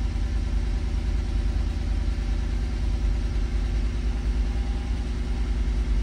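2011 Lexus IS F's 5.0-litre V8 idling steadily, heard inside the cabin, still running cold after a 19-degree overnight cold start.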